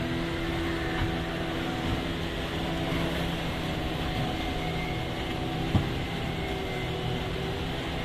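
Small wooden fishing boat's engine running steadily, over the wash of waves on the rocks. A single sharp knock about six seconds in.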